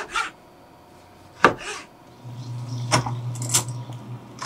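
Chef's knife knocking on a cutting board as it slices through a tomato: a few separate sharp knocks, the loudest about a second and a half in. From about two seconds in, a low steady hum joins, with a few more clinks and knocks.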